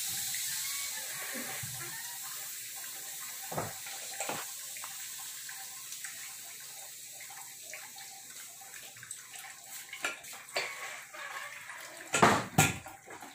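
Stovetop pressure cooker hissing as steam is let out through its lid vent once the dal is cooked, the hiss slowly fading. A few metal knocks and clinks, the loudest near the end.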